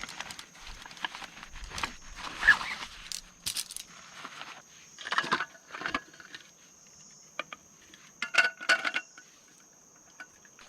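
Camping gear being handled: irregular rustling, knocks and light metallic clinks, with a cluster of ringing clinks about eight seconds in. A steady high insect drone runs underneath.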